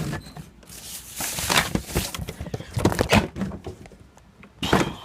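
Shop vacuum parts being handled and pushed together: several separate bursts of knocking and rustling, with no motor running.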